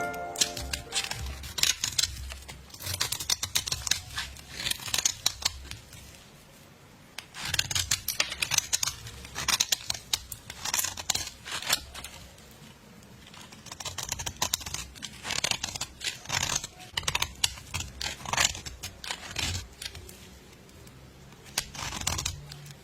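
Rapid crisp clicks and crackles in four bursts of a few seconds each, separated by brief quieter pauses.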